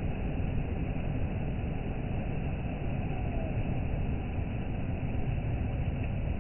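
Steady low rushing noise of the sea and wind at the shore, with no single wave break standing out.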